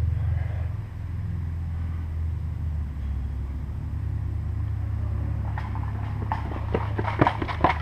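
Steady low rumble on the microphone, with a quick run of sharp clicks and knocks in the last two seconds.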